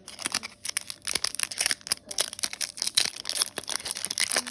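Foil booster pack wrapper crinkling in the hands as the pack is opened: dense, irregular crackling, close to the microphone.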